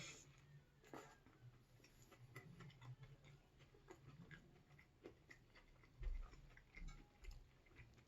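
Faint eating sounds: scattered small clicks and smacks of chewing, with a few dull low bumps about six to seven and a half seconds in, over a low steady hum.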